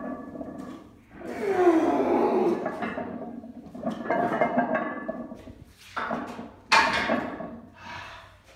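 Straining during a heavy barbell back squat: a long groaning yell falling in pitch, then hard, rough breaths. Two sharp loud sounds come about six and seven seconds in.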